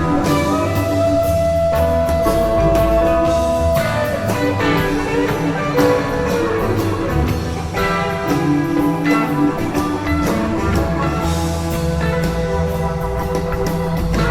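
Instrumental blues-rock jam with electric guitar and drum kit, with a long held guitar note early on.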